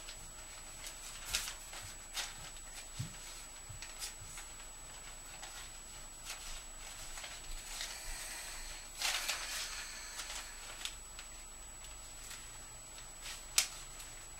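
Sheets of letter paper rustling and crackling as they are handled and unfolded, with a longer rustle about nine seconds in and a single sharp click near the end. A faint steady high whine runs underneath.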